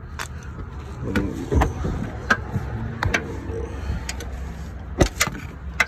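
Scattered sharp clicks and knocks of tools and parts being handled while working on the car's belt tensioner, over a steady low hum.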